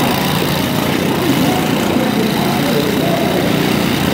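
Several riding lawn mower engines running together, steady and loud, with wavering pitch over the top.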